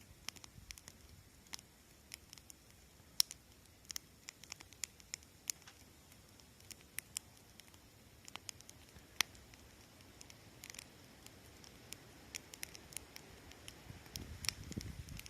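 Wood fire crackling: irregular sharp pops and snaps, a few to several a second, with a soft low rumble near the end.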